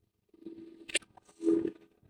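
A sharp click about halfway through, then a short, louder muffled noise with a low hum, picked up by a close desk microphone.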